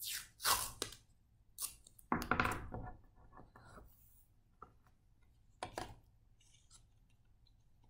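Masking tape being pulled off the roll and torn, in a few short rips over the first three seconds and one more about six seconds in.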